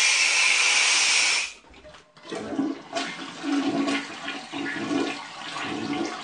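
Shower head hissing loudly as air and water blow out of the plumbing, pressurized by compressed air in the hot water tank; the hiss cuts off about a second and a half in. After a short pause, water gurgles and splashes unevenly in a toilet as its lines are blown out.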